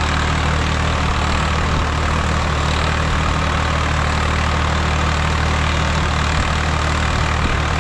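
Swaraj 855 FE tractor's three-cylinder diesel engine running steadily while the tractor works a field round, with a constant low hum and no change in speed.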